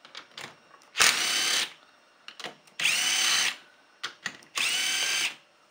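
Power drill spinning cylinder-head bolts out of a small motorcycle engine in three short runs, each a whine that rises and then holds steady. Small clicks come between the runs.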